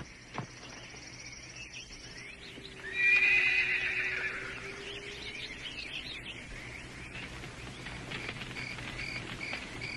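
A horse whinnies loudly about three seconds in, its call wavering and trailing off over a couple of seconds.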